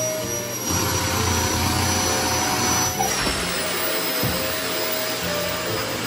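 Sanyo vacuum cleaner running with a steady high whine, its suction drawing in a futon to fold it. It gets louder from just under a second in until about three seconds in.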